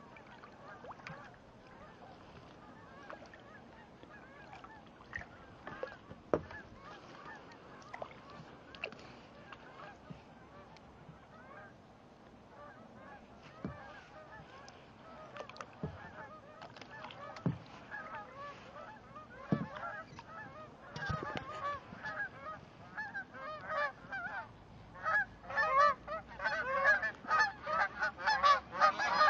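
A flock of geese honking, many short calls overlapping, becoming much louder and denser over the last few seconds.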